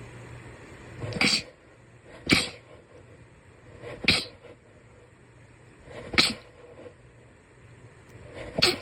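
Five short, sharp sneezes in a row, spaced a second or two apart.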